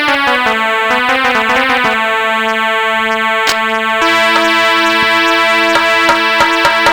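Instrumental music introduction on an electronic keyboard: sustained synthesizer chords with a chord change about four seconds in.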